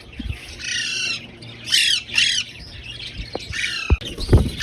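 Parrots squawking in a flock, about five harsh screeching calls spread through a few seconds. A couple of dull low knocks sound near the end.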